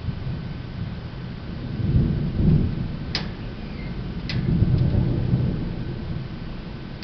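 Thunder rumbling in two low swells, the first about two seconds in and the second near the middle, with two brief sharp clicks between them.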